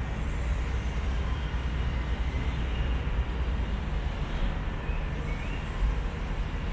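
Bombardier M5000 Metrolink tram creeping slowly into a street-level tram platform, heard as a steady low rumble with outdoor city noise.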